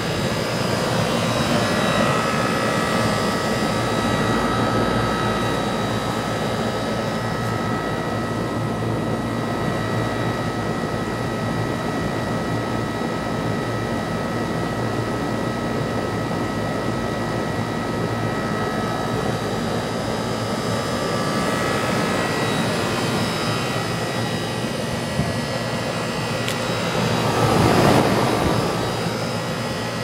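Heil packaged HVAC unit running: a steady rush of air from the condenser fan with faint, steady whining tones over it, growing louder for about two seconds near the end.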